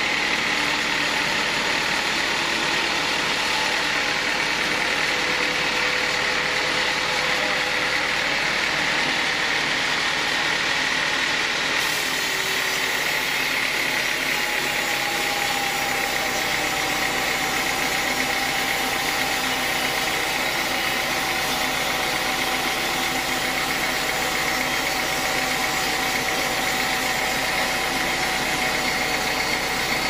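Band sawmill running, its band blade sawing lengthwise through a teak log: a steady mechanical whine with a constant high tone.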